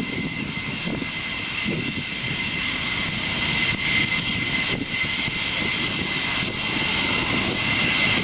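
McDonnell Douglas F-15E Strike Eagle's twin jet engines running at low power as it taxis: a steady high whine over a rough rumble.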